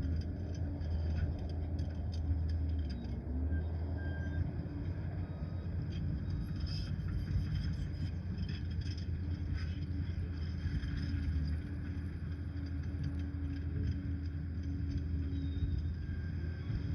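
Liebherr PR 746 crawler dozer's diesel engine running steadily under work, its pitch dipping briefly about three seconds in, with scattered short clanks and clicks.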